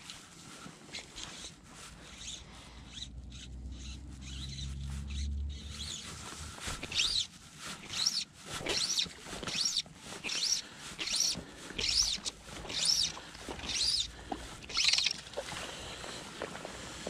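Fly line being brought in on a hooked trout: a run of raspy strokes, about one every two-thirds of a second, starting about seven seconds in and stopping about two seconds before the end.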